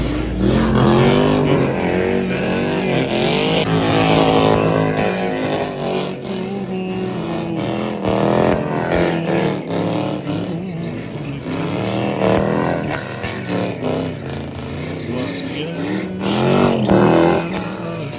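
Toyota 3UZ V8 in a sedan revving hard, rising and falling again and again as the car spins donuts, with tyres squealing under wheelspin.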